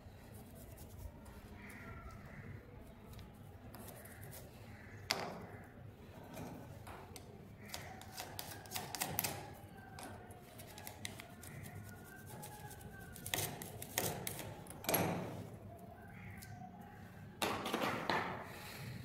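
A small metal USB drive casing being scrubbed with a wire-bristle brush and handled on a concrete floor: scattered scratching with sharp clicks and taps, the loudest few in the second half.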